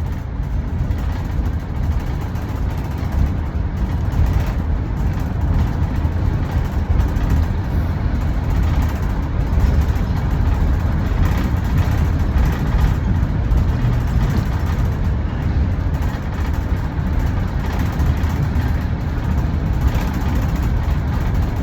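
Transit bus running, a steady low engine rumble and road noise heard from inside the cabin.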